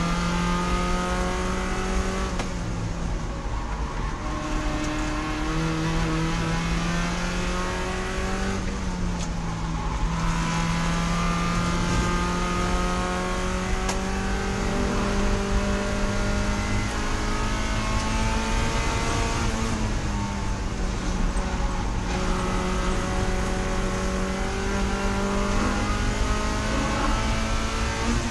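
Spec Miata race car's four-cylinder engine under hard acceleration, its pitch climbing steadily through each gear and dropping back abruptly at shifts, about twice.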